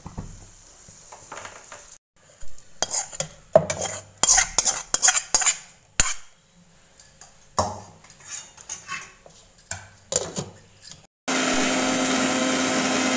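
A metal spoon scraping and clinking against a kadai and a steel jar as cooked fenugreek leaves and green chillies are scraped into a mixer-grinder jar. Near the end a Prestige mixer grinder runs steadily for about two seconds, then stops suddenly, grinding the fenugreek chutney.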